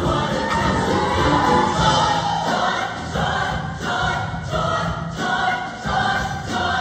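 Show choir singing in full ensemble with a live backing band, the voices carried over a steady beat and bass.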